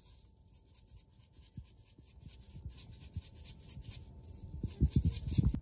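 Sprinkles rattling in a plastic shaker bottle as it is shaken over cake batter, a quick scratchy rattle several times a second. A few dull knocks near the end, louder than the rattle.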